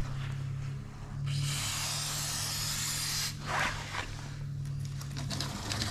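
Aerosol universal lubricant sprayed onto a motorcycle drive chain: one steady hiss lasting about two seconds, starting about a second in, over a low steady hum.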